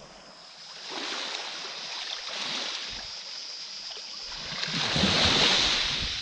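Small sea waves washing and lapping over a flat rocky shore, swelling to a louder wash about five seconds in, with some wind rumble on the microphone.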